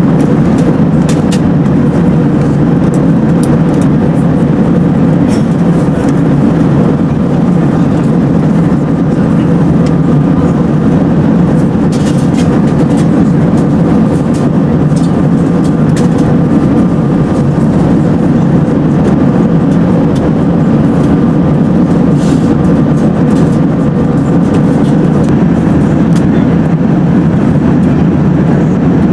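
Steady cabin noise inside an Airbus A380-842 at cruise: a loud, even rumble of airflow and the Rolls-Royce Trent 972 engines, with a faint steady hum over it and a few faint clicks.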